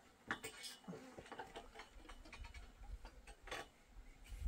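Faint, irregular light clicks and knocks: a few in quick succession near the start, and a sharper one about three and a half seconds in.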